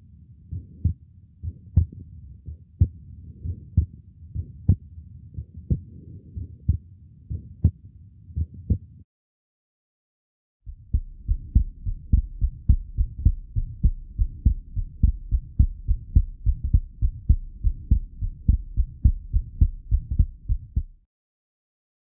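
Stethoscope recording of a heart with a small muscular ventricular septal defect: regular lub-dub beats with a murmur between them. It stops about 9 seconds in, and after a short silence a second stethoscope recording starts: a child's heart with a Still's vibratory systolic murmur, beating faster.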